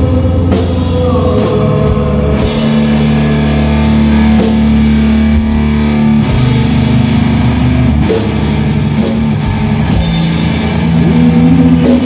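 Live funeral doom metal: distorted electric guitar holding long, low chords that change every few seconds, with a few drum hits spread out between them.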